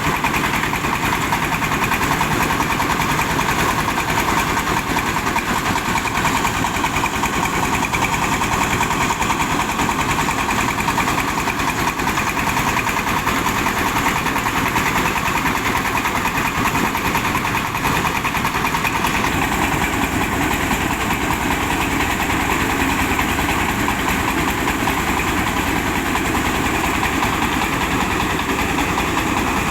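Diesel engine of a mobile rice-milling machine running steadily, with the mill's hiss over it; the higher hiss eases slightly about two-thirds of the way through.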